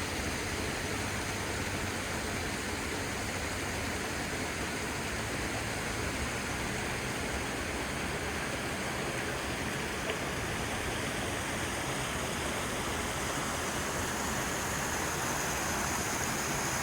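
Brook water running, an even, steady rushing.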